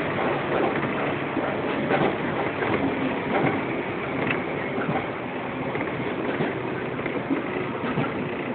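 Running noise inside a JR 115 series electric train's motor car travelling at speed: a steady rumble of wheels on rails with a faint low hum under it.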